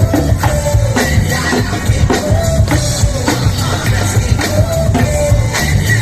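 Loud recorded dance music over a PA system: a steady drum beat of about two strokes a second under a repeating melodic riff, with no vocals.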